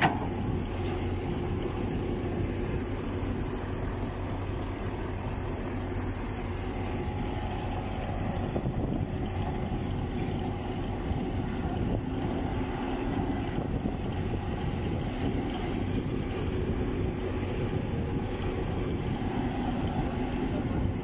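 Diesel engine of a Caterpillar excavator running steadily under load as it digs sand out of the pipeline trench.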